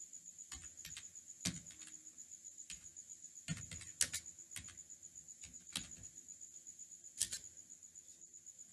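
Typing on a computer keyboard: about a dozen irregular key clicks, with a few louder strokes, over a steady faint high-pitched whine.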